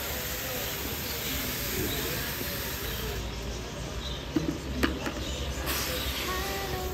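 Bird seed poured in a stream from one plastic bucket into another, a steady hiss, while an electric fan blows the dust out of it. The pour stops about three seconds in, then come a couple of sharp knocks from the handled bucket, and the hiss of pouring starts again near the end.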